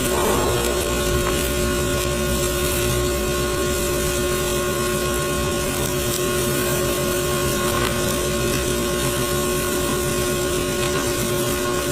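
MIG welding arc, with its steady hiss and crackle over a constant hum.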